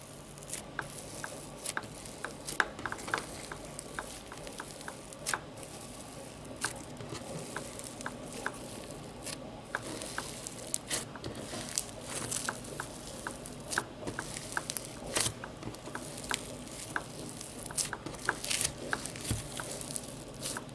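Foam slime with beads mixed in being squeezed and pulled by hand, giving many small, irregular sticky pops and crackles.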